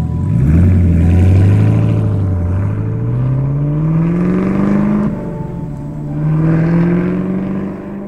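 A car engine accelerating hard, its pitch climbing steadily, dropping suddenly about five seconds in at a gear change, then climbing again.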